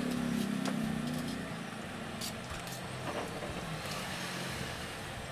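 A motor vehicle engine going by: a low hum, loudest in the first second and a half, then fading into steady background noise.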